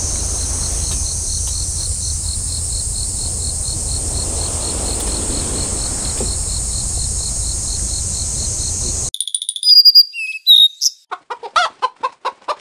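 Insects trilling steadily in a high pitch with a quick regular chirp, over a low wind rumble on the microphone. About nine seconds in this cuts off suddenly into a cartoon-style intro jingle of short chirps and sliding whistle sounds.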